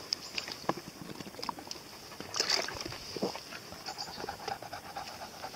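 Faint panting from Caucasian Shepherd Dogs (ovcharkas), with scattered light clicks and rustles.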